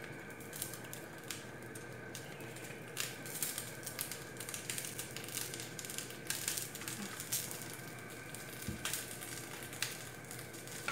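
Boiled basmati rice poured from a plastic colander into a pot and spread with a slotted spatula: faint, scattered soft taps and scrapes over a low, steady hum.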